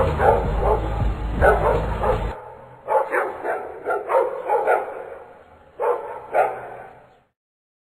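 Dog barking in short repeated bursts over background music. The music stops a little over two seconds in, and the barks carry on alone until about seven seconds in.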